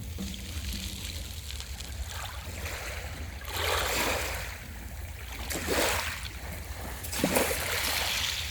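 Small ocean waves breaking and washing up the beach, three surges about two seconds apart, over a steady low rumble.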